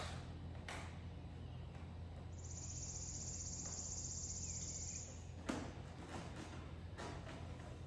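Light clicks and taps of hand-tool work as an Allen key loosens fairing windshield screws, over a low steady hum. A high-pitched pulsing trill runs for about three seconds in the middle.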